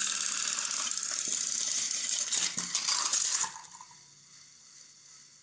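Motorised toy train whirring and rattling along its plastic track as it pushes a string of cars, with a clatter of knocks as the cars come off the track. The whirring cuts off suddenly about three and a half seconds in.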